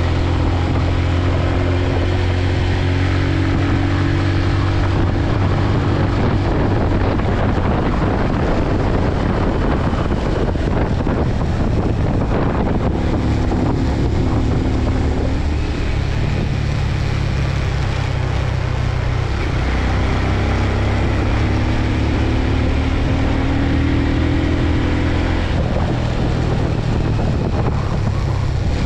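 Small motorbike engine running at riding speed, with heavy wind rushing over the microphone. The engine note shifts a little from time to time.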